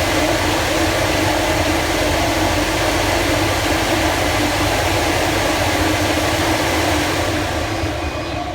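Air shower room's blower fans running, a loud steady rush of air from the nozzles with a steady hum, easing slightly near the end.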